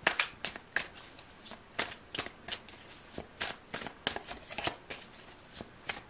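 A tarot deck being shuffled by hand: a run of quick, papery card swishes and slaps, about two or three a second, uneven in spacing.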